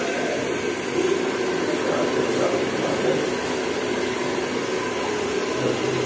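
A steady rushing noise without breaks, like a running appliance moving air.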